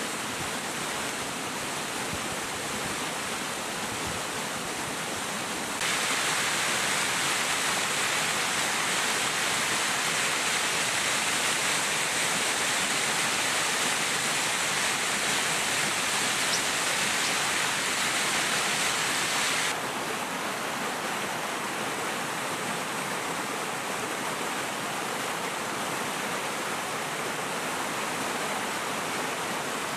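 Steady rushing water, an even hiss without pattern. About six seconds in it turns suddenly louder and brighter, and it drops back to the first sound some fourteen seconds later, as one stretch of flowing water gives way to another.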